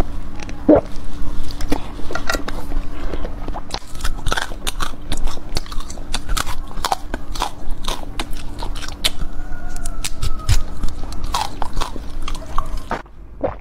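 Close-miked biting and chewing of sweets: a green jelly bar on a stick, then pink-and-green marshmallows eaten off skewers, full of short sharp wet clicks and mouth smacks. A steady low hum runs underneath.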